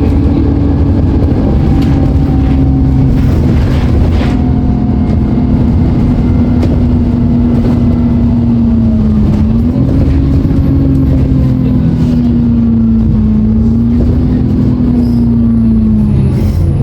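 Alexander Dennis Enviro 400 double-decker bus's diesel engine running under way, with a strong steady whine over the low rumble. The whine wavers gently in pitch, dips around the middle, and falls away near the end as the bus eases off.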